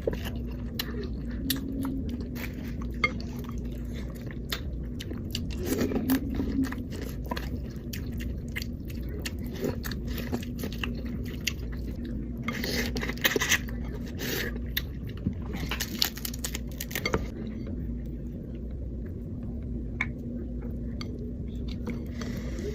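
Close-up eating sounds from a seafood boil: chewing, biting and wet mouth noises with frequent sharp clicks, and two brief rustles near the middle. A steady low hum runs underneath.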